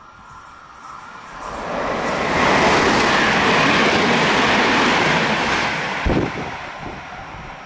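Passenger train hauled by an E.464 electric locomotive passing at speed: a rush of wheels on rail and air swells up, holds loud for about three seconds and fades as the last coach goes by, with a sharp short thump about six seconds in.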